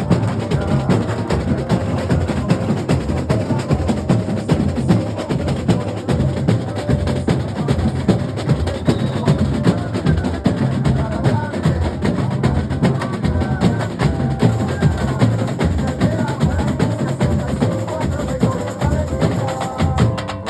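Comparsa percussion section (batería) playing together, a dense, continuous drum rhythm with snare drums.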